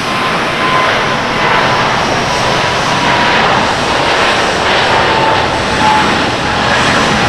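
Boeing 777-300ER's GE90 turbofans at takeoff thrust as the airliner rotates and lifts off: loud, steady jet noise with a whining tone that slowly drops in pitch as the aircraft passes.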